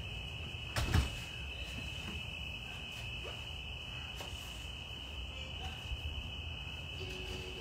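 Crickets trilling in a steady high-pitched night chorus, with a single thump about a second in.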